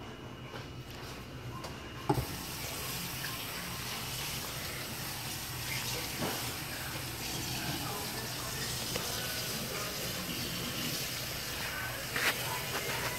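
Kitchen faucet running into a stainless-steel sink with a steady hiss, coming on about two seconds in just after a knock. Hands are rinsed under the stream, with a couple of knocks against the sink later on.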